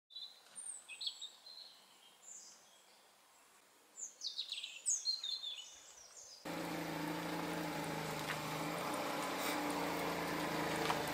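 Birds chirping and singing in short high calls. About six and a half seconds in, the sound cuts suddenly to a steady vehicle engine hum with a low drone.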